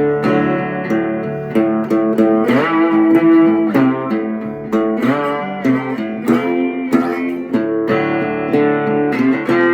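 Resonator guitar played with a slide in a blues instrumental break: notes glide up and down into pitch several times over repeated low bass notes.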